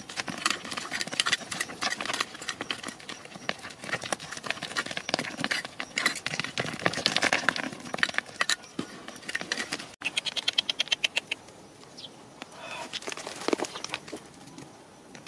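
Digging by hand in stony red soil: irregular knocks and scrapes of stones and earth being struck and raked. About ten seconds in there is a short, quicker run of clicks, and after that the scraping is quieter.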